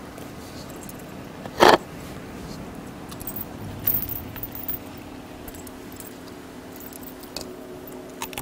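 Metal chain on a Jindo dog's collar jangling and clinking as the dog moves about to take food, with one loud sharp knock about a second and a half in.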